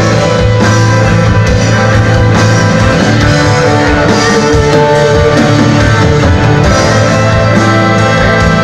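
Rock band playing live in an instrumental stretch: electric guitars, bass, drums and keyboards, loud and steady throughout.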